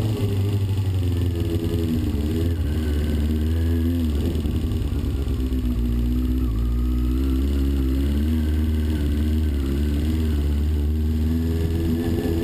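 Kawasaki ZXR 400's inline-four engine running steadily near idle, its speed rising and falling slightly a couple of times, with a knock that the owner says has newly appeared.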